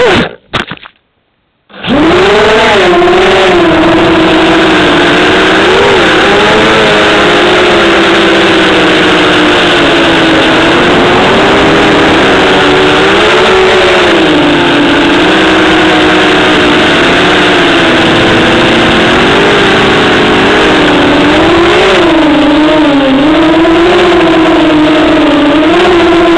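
Brushless motors and propellers of a 250-size FPV racing quadcopter, heard from its onboard camera: a loud buzzing whine whose pitch rises and falls with the throttle. The sound cuts out for about a second and a half near the start, then resumes.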